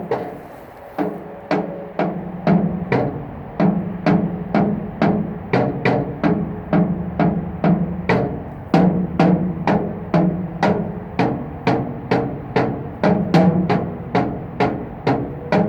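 Sticks drumming a steady rhythmic beat on a bridge's metal structure, about two to three strikes a second, each strike ringing briefly with a pitched tone.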